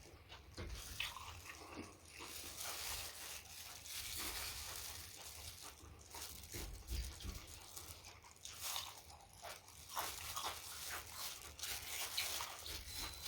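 A person chewing and crunching food in irregular wet bites and mouth sounds.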